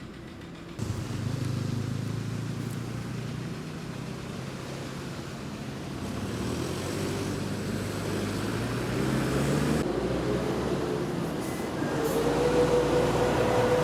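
A vehicle's engine running, its pitch rising over several seconds, with a steady whine coming in near the end.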